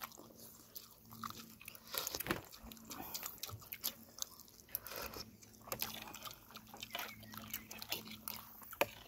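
Close-up eating sounds: chewing, biting and lip smacks as people eat boiled chicken and rice, with many small scattered clicks.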